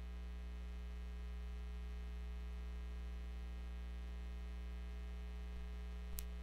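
Steady electrical mains hum with a stack of overtones from the sound system, while the speech feed has dropped out. A single brief click comes near the end.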